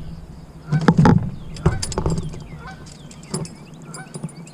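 Knocks and light clatter of fishing tackle being handled in a plastic kayak. The sharpest knocks come about a second in and again near the middle, and faint high chirping sounds in the background.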